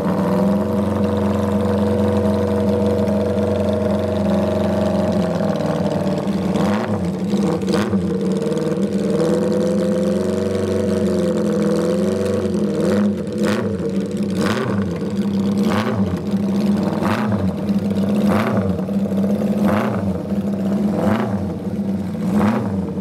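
Honda CB550 inline-four engine of a race-replica motorcycle running: a steady idle at first, then blipped with the throttle, with short sharp revs about every second and a half through the second half.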